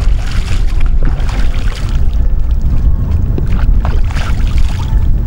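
Hands scooping lake water and splashing it onto a face, several separate splashes, over a heavy rumble of wind on the microphone.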